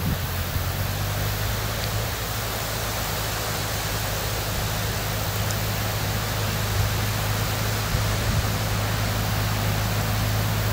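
Tractor engine running at a steady speed as the tractor drives with two round straw bales raised on its front loader, a constant low hum under a steady rushing hiss.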